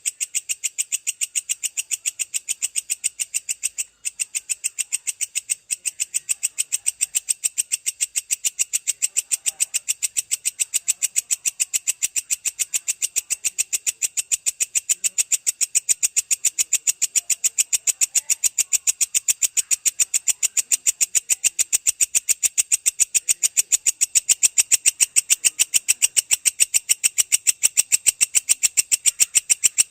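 Belalang kecek grasshopper calling: a long, unbroken run of rapid, shrill, evenly spaced ticking pulses, about five a second.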